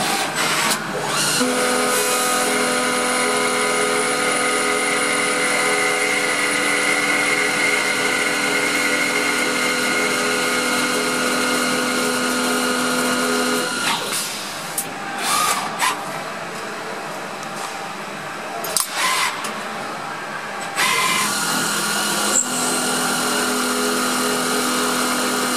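Automatic CNC screwdriver-bit making machine running while it machines a long Phillips bit, with a steady mechanical whine. The whine drops out about 14 seconds in, giving way to a few sharp clicks, and comes back steady near the end.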